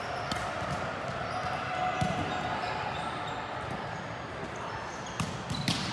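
A volleyball being struck during a rally: several sharp slaps of hands and arms on the ball, spread a second or more apart, over the steady chatter of players in a large gym.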